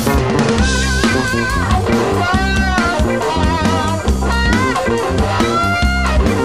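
Blues band playing an instrumental passage: electric guitars, bass guitar and drum kit, with a lead line that wavers with wide vibrato and bends in pitch over a repeating bass figure.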